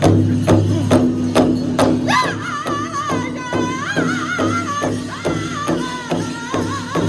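Powwow drum group striking a large shared hide drum together in a steady beat, about two strikes a second. About two seconds in, one high-pitched voice begins singing over the beat in a wavering line.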